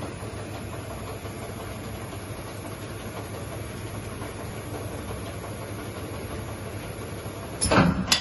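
UNISIGN UV 4000 vertical machining centre running with a steady low hum. Near the end there is a brief loud clunk.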